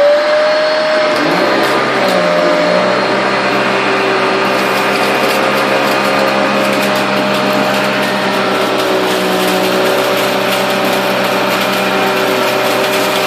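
Simplicity Synergy upright vacuum running in place: its suction motor whines up at the start, and its separate brush-roll motor spins up about a second and a half in, then both run steadily. Rice grains tick and rattle against the strong agitator.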